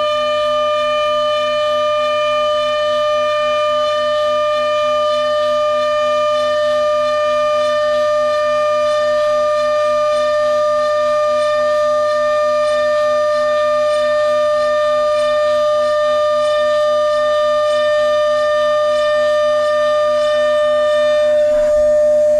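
DATRON neo+ CNC milling machine's high-speed spindle whining at one steady pitch as it mills, with a faint regular pulsing underneath and a brief rougher moment near the end.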